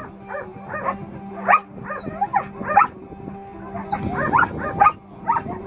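A dog barking in a rapid string of short yips, about three or four a second, over background music.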